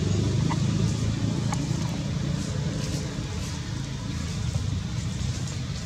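Steady low outdoor rumble, with a few faint clicks about half a second and a second and a half in.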